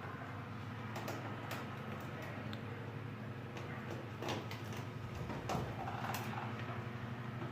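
A lock being worked back into the locked position: scattered sharp clicks and small knocks, five or six in all, over a steady low hum.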